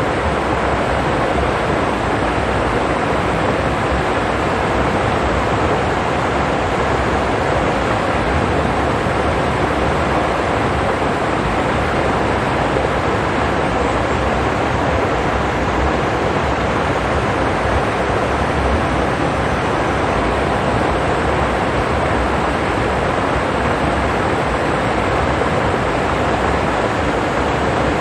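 Rocky forest stream running over stones: a steady, even rush of water.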